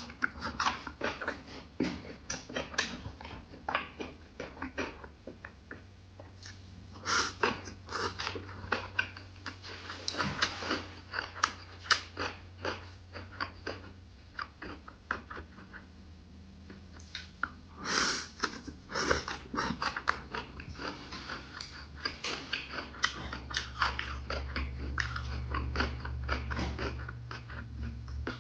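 Close-miked wet chewing and mouth smacks of a person eating griddle-fried pork intestine and kimchi, in an irregular run of bites. A low steady hum runs underneath and grows louder over the last few seconds.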